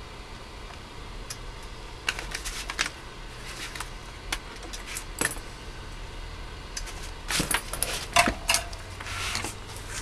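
Clicks, knocks and metallic clatter of a CB radio's metal chassis and bench tools being handled and the radio turned over, in several short clusters with the loudest clatter about seven to eight and a half seconds in.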